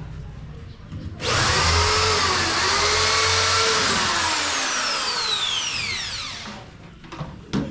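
Electric drill starts suddenly about a second in and runs for about five seconds, drilling a hole for a rivet. It then winds down with a falling whine.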